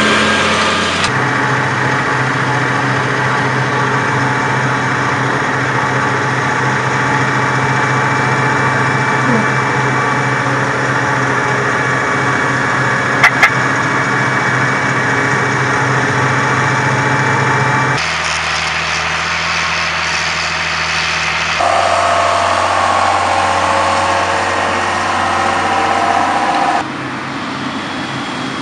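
Tractor engines running steadily in a string of cut-together recordings. The longest stretch is a New Holland T7.250 driving on the road, with two short sharp clicks part-way through. Near the end comes a quieter stretch from a green tractor pulling a grain trailer across stubble.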